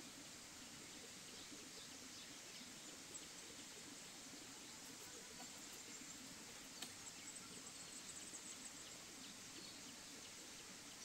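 Near silence: a faint steady outdoor hiss with scattered high bird chirps, and a short high trill about seven seconds in.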